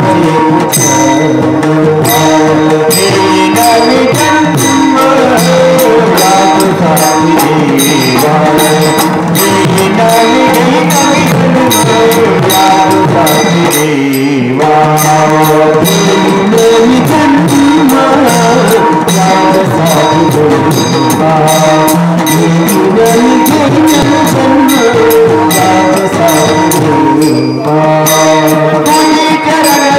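Varkari kirtan music: a group of men chanting a devotional song together over a steady beat of clashing hand cymbals (taal) and drum.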